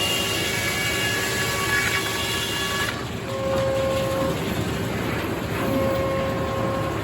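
Circular sawmill running: steady machine noise with several high steady tones over a hiss. About three seconds in the high hiss fades, and a lower steady tone comes and goes twice.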